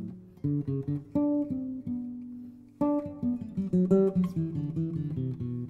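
Background music of acoustic guitar: picked notes, with one held note fading out about two seconds in before the playing resumes.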